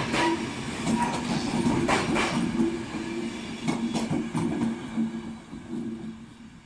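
RegioJet passenger coaches rolling past on the track, wheels clicking irregularly over the rail joints. The sound fades away as the last coach passes and the train moves off.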